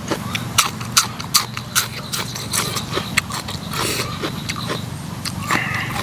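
Close-up eating of papaya salad with pickled salmon and shrimp: a string of short wet smacks and crunches of chewing, about two or three a second.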